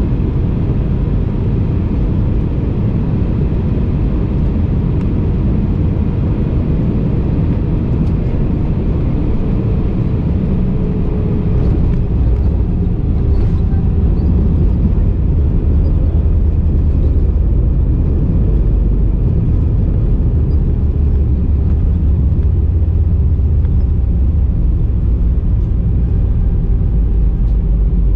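Airbus A319 airliner heard from inside the cabin: a steady rumble of engine and airflow noise that gets louder and deeper about twelve seconds in.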